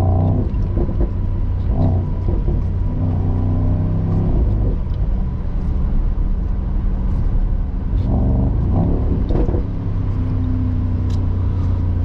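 The 4.0-litre twin-turbo V8 of a 2022 Mercedes-AMG SL55, with its sport exhaust open in Sport Plus, running at low road speed and heard from inside the cabin. It is mostly a steady low drone, swelling briefly a couple of times on light throttle.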